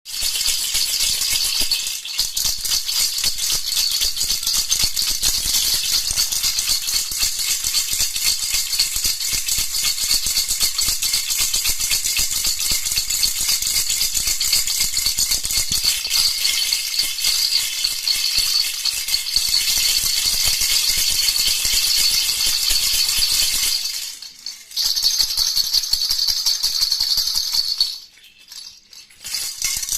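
Baby rattle (jhunjhuna) shaken continuously in a fast, dense rattle, stopping briefly twice near the end.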